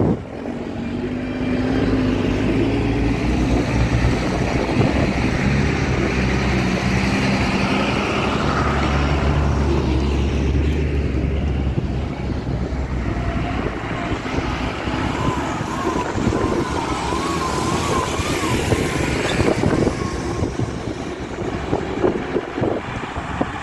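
Diesel engines of loaded Tata tipper trucks running as they drive past one after another on a dirt haul road, a steady low engine hum that turns rougher and noisier about halfway through. A faint wavering high tone is heard partway through.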